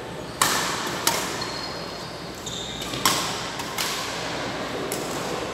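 Badminton rackets striking a shuttlecock in a rally: four sharp hits, in two close pairs about two seconds apart, each echoing briefly in a large hall.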